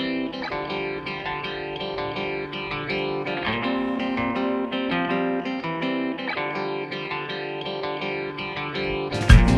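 Background music: a plucked guitar with effects playing a repeating melody. Near the end a sudden, much louder sound with a heavy low rumble cuts in.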